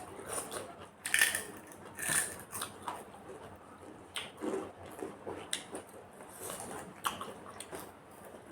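Close-up eating sounds: crisp food being bitten and crunched in the mouth, a string of small crackly crunches with the loudest about one and two seconds in.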